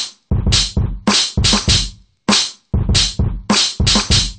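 Programmed drum loop of kick, snare and hi-hat samples from Native Instruments Battery 4's DuoWest kit, played back by Maschine 2 at 99 BPM. It is a syncopated beat of a dozen or so sharp hits.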